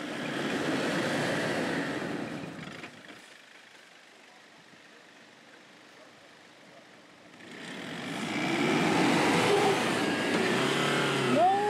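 Four-wheel-drive engine revving under load while trying to climb a rocky step. There is a burst at the start, a lull of a few seconds, then repeated revs rising and falling from about halfway on.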